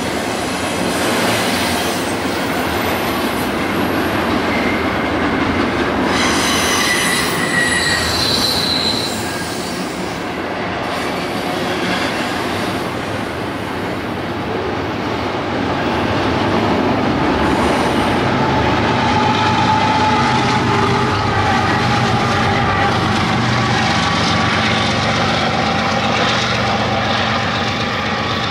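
A train rolling past close by: a steady loud rumble of wheels on the rails, with high-pitched wheel squeal a few seconds in and a wavering squealing tone through the second half.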